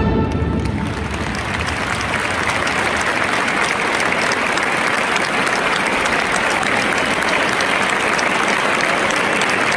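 Audience applauding steadily and densely just after a band's piece ends; the last notes of the music die away in the first second.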